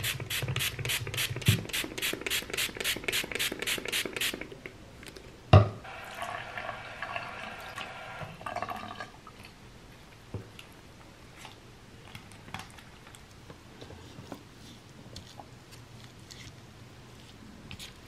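A spray bottle of makeup-brush cleaner pumped rapidly onto a makeup brush, about twenty quick sprays in four seconds. A sharp knock comes a little after five seconds in, then a sink tap runs for about three seconds with a steady tone. After that a makeup brush is scrubbed softly on a wet silicone cleaning pad in the sink.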